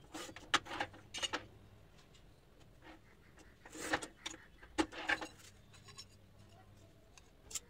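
Manual tile cutter at work on a ceramic tile: a few light knocks as the tile is set against the fence, then a short scratch as the scoring wheel is pushed across the tile a little before 4 s, followed by a sharp crack as the tile is snapped in half. Light clinks of tile pieces being handled follow.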